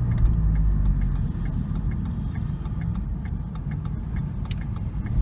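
Car cabin noise while driving: a steady low road and engine rumble, with a faint, evenly repeated ticking over it.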